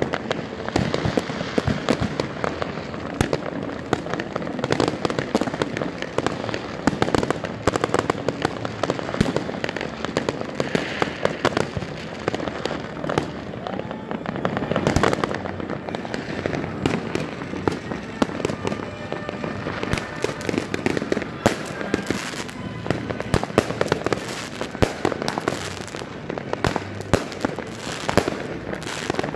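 Fireworks and firecrackers going off all around: a dense, unbroken run of bangs, pops and crackles, many overlapping, with music playing faintly underneath.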